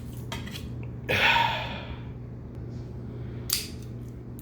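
A short breathy gasp or exhale from a man about a second in, with a few small handling clicks before and after it.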